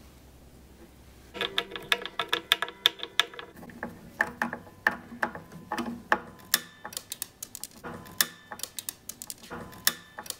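Hand screwdriver driving and tightening the screw of a wooden (snakewood) guitar strap button into the neck heel: a quick, irregular run of clicks starting about a second and a half in. The button is being over-tightened, which cracks the wood.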